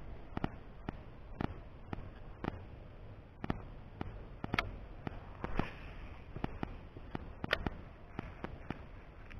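Sharp, irregular clicks, about one or two a second, over a steady outdoor hiss: fishing rod and reel being worked to retrieve a soft-plastic lure.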